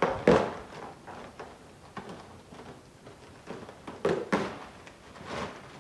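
Packaging of a boxed toy being handled and opened: a few sharp knocks and rustles, the loudest right at the start, then more about four seconds in and again near the end.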